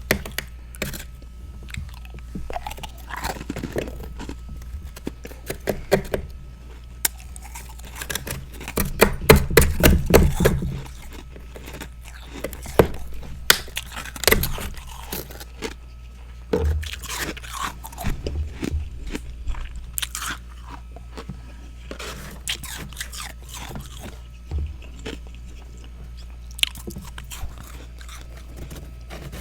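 Close-miked biting and chewing of freezer frost: a mouth crunching ice chunks in irregular bursts, with the densest, loudest run of crunching about nine to eleven seconds in.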